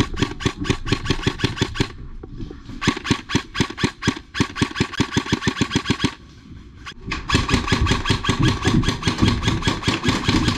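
Rapid full-auto fire from a paintball or airsoft gun, about ten shots a second, in three long bursts with short pauses about two and six seconds in.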